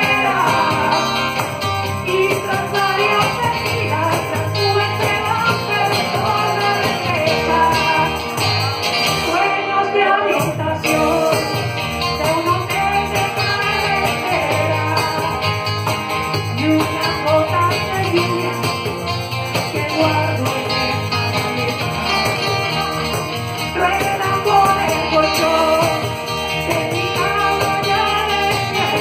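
Live band music: a woman's voice singing lead through a microphone over strummed acoustic guitar, cajón and jingling hand percussion.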